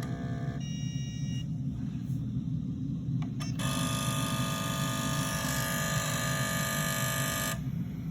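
A car running with a steady low rumble. A brief high electronic tone sounds about half a second in, then a few clicks. From about three and a half seconds in, a loud, full ringing tone holds steady for about four seconds, then cuts off suddenly.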